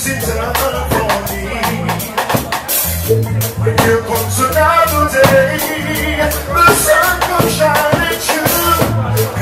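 Live reggae band playing: a repeating bass line and a drum kit keeping a steady beat, with a man's voice singing over it through the microphone.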